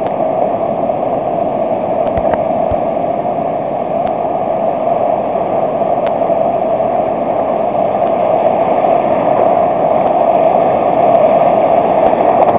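Steady rush of small surf breaking and washing through shallow water, growing a little louder toward the end.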